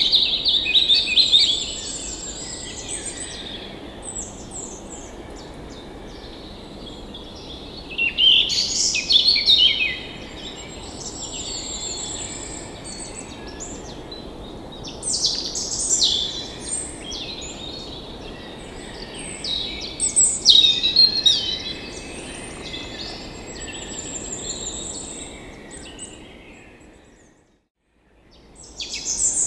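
Several birds singing and chirping in overlapping bouts of quick trills and twitters, over a steady background rush. The sound fades out near the end, then comes back in.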